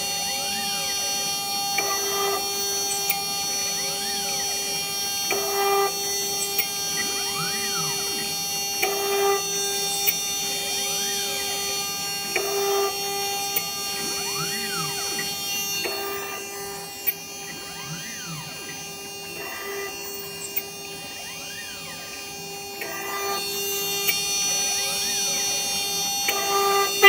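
Desktop CNC router drilling holes in a metal burner: the 800 W water-cooled spindle runs with a steady whine while the stepper motors whine up and down in pitch as the head moves between holes. The sound swells as the drill plunges into the next hole, about every three and a half seconds.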